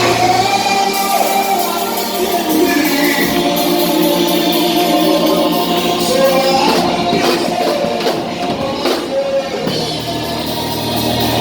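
Music with singing voices holding long notes. The bass drops out about a second in and comes back near the end.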